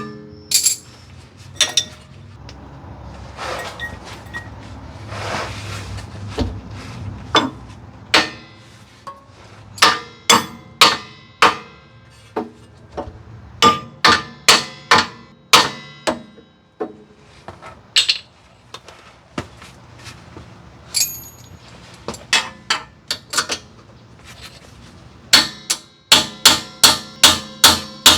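Hammer blows on metal: the seized rear suspension knuckle of a Lexus SC300 being knocked to free it. The blows come singly and in quick runs of about three a second, each ringing briefly.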